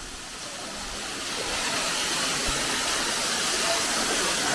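Waterfall pouring steadily, a rushing hiss that grows louder over the first two seconds.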